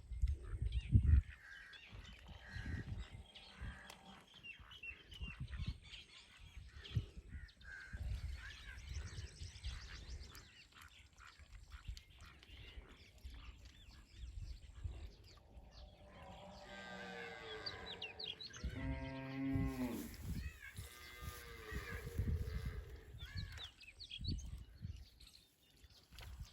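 A cow mooing: one long, low call about two-thirds of the way through, over low rumbling and knocks at the microphone.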